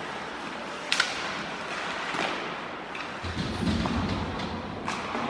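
Ice hockey play in an arena: a sharp crack about a second in, then lighter knocks and a low rumble of bodies and puck against the boards in the second half, over a steady arena hubbub.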